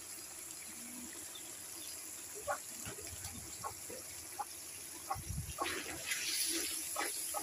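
Thick spiced masala bubbling and sizzling in an aluminium pan, stirred with a wooden spatula, while chickens cluck now and then in the background.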